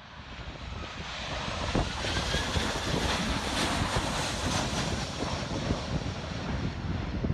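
Jet engines of a low-flying Boeing 737 airliner on approach, a rushing roar that builds over about the first two seconds as the plane nears and then holds loud and steady. Strong gusty wind buffets the microphone.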